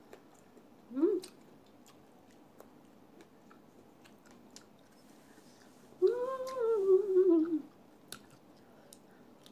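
A woman's wordless voice while eating: a short rising "hm" about a second in, and a long hummed "mmm" about six seconds in that slowly falls in pitch. Faint chewing and mouth clicks come in between.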